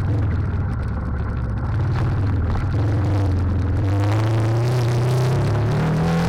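Trail motorcycle engine running, its pitch climbing steadily through the second half as the bike accelerates.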